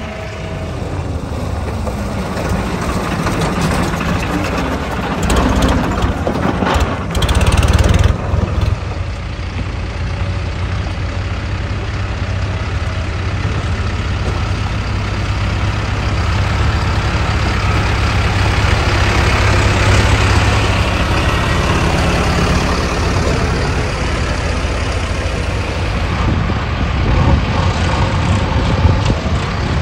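Diesel engines of several backhoe loaders and farm tractors running as they drive past in a line, louder for a moment about seven seconds in.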